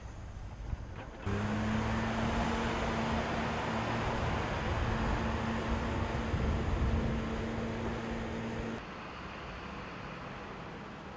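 Heavy military diesel vehicles running. From about a second in, a container handler's engine runs steadily with a low hum and a faint, wavering high whine. Near the end this gives way to a quieter engine rumble from an army truck driving through a ship's vehicle deck.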